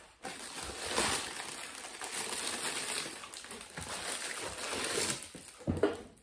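A cardboard box being opened by hand and a plastic-wrapped insulated jug slid out of it: scraping and rustling of cardboard and plastic wrap, with a thump near the end.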